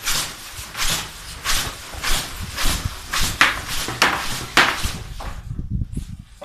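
Large fabric wings of a homemade human-powered ornithopter flapped fast by hand: a rhythmic whooshing of air, about three beats every two seconds, with a low rumble under it. The flapping stops near the end.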